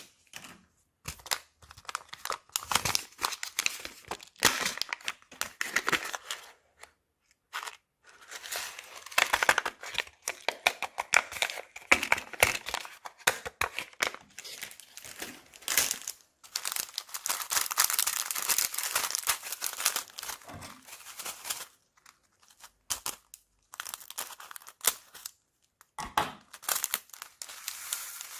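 Plastic bags crinkling and crackling as slime is squeezed and worked in them, in bursts of handling with short pauses between.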